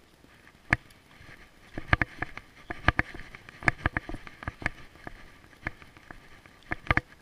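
Irregular sharp clicks and taps from walking a leashed dog along a concrete sidewalk, several a second at times and loudest and densest in the middle few seconds.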